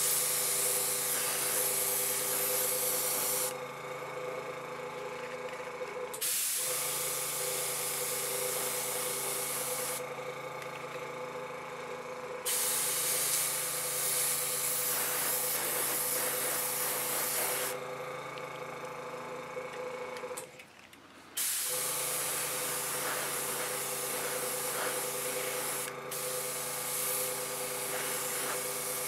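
Airbrush spraying weathering paint in four bursts of a few seconds each, its hiss switching on and off over the steady hum of a small air compressor. Both stop for about a second around two-thirds of the way through.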